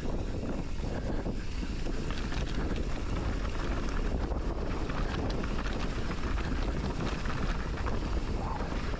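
Wind buffeting the microphone over the steady rumble and small rattles of a mountain bike rolling down a rough trail.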